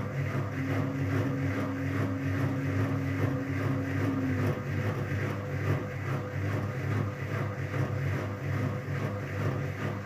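Whirlpool FCSR90425 front-loading washing machine turning its drum slowly to balance the wet load before a 1000 rpm spin: a steady motor hum, with a higher tone that stops about four and a half seconds in.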